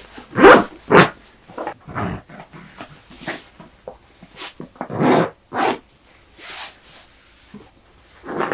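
Rustling and soft thumps of a bulky comforter being pressed and stuffed into a cloth storage bag, in a series of separate short bursts, with a zipper pulled along the bag.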